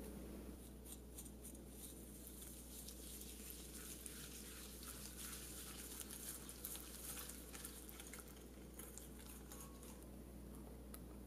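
Wire whisk beating egg yolks and sugar in a glass bowl: faint, quick, irregular clicks and taps of the wires against the glass. They begin about half a second in and stop shortly before the end.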